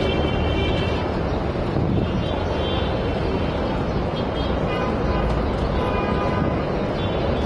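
Busy street traffic: steady road noise of passing cars, with brief car horn toots near the start and again about five seconds in.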